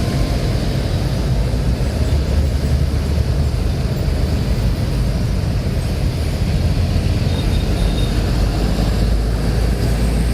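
Large vehicle's engine running, a steady low rumble with no change in pitch.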